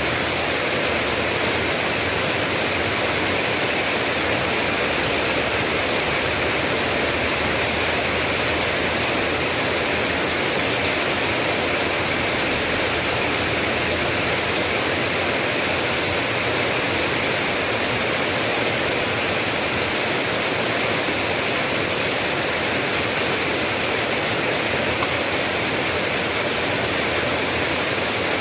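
Steady, dense rain: an even hiss with no single drops, thunder or changes standing out.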